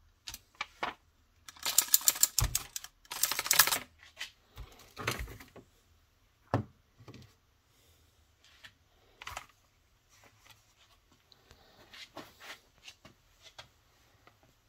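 Bursts of rapid clicking, loudest and densest in the first four seconds, with a few low knocks and thinner scattered clicks after that.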